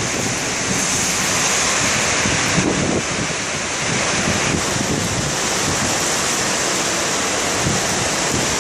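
Loud, steady rush of wind and water, like heavy surf, with wind buffeting the microphone.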